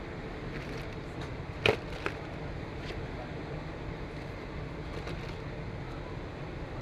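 Steady airliner cabin noise, the hum and hiss of the air supply, with two sharp clicks close together about two seconds in.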